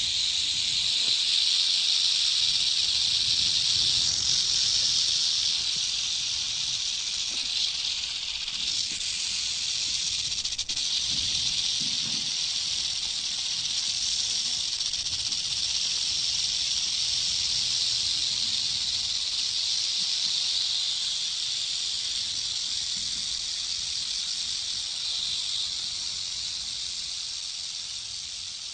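A snake making a continuous high, hissy noise that swells and eases slowly without a break, with faint low rumbling underneath.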